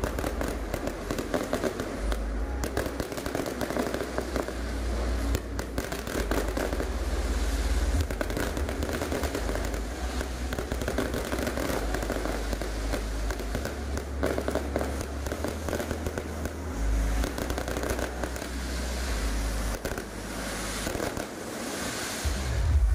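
Aerial fireworks going off continuously: dense crackling and popping from many shells bursting at once.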